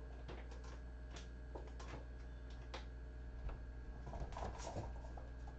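Faint room tone over a steady low electrical hum, with scattered soft ticks and a short cluster of light taps and rustles about four seconds in, as kittens move about on the couch cushions.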